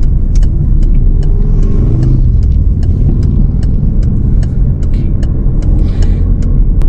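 Car engine and road noise heard inside the cabin while driving: a steady low rumble, with engine pitch rising briefly about two seconds in, and a string of light ticks at about two or three a second.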